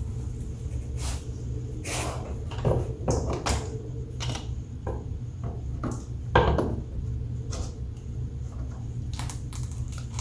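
Scattered clicks and knocks of jet pump parts being handled and set down, two of them louder, about three and a half and six and a half seconds in, over a steady low hum.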